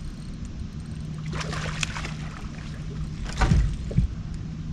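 A boat motor hums steadily. A burst of splashing comes about a second and a half in, then two heavy thumps near the end as a smallmouth bass is landed in the boat.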